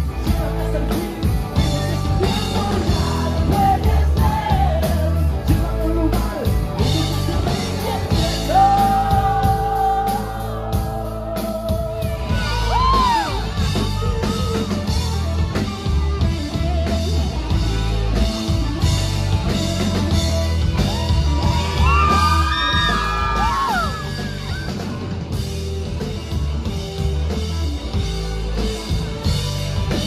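Live rock band playing loudly in a hall: electric guitars, bass and drums, with singing and yelling over the music.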